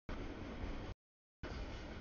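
Freight train of tank cars and boxcars rolling past: a steady rumble and wheel noise. It cuts out completely for about half a second a second in, then comes straight back.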